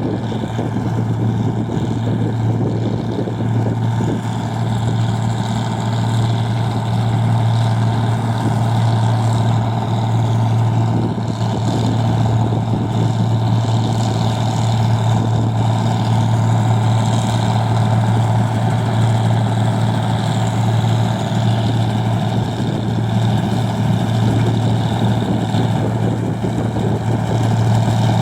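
Engine of a rice machine running steadily, a constant low hum that gets slightly louder near the end.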